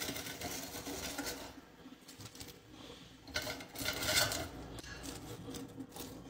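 Crinkle-cut fries being moved from an air fryer basket onto bread on a plate: scattered light clinks, taps and rustles, loudest about four seconds in.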